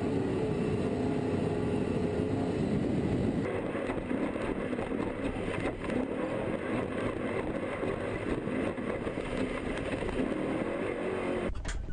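BMW-engined Baja off-road racer's engine running hard at speed. The engine note is clear for the first few seconds, then turns rougher and noisier from about three seconds in, with occasional knocks, and cuts off just before the end.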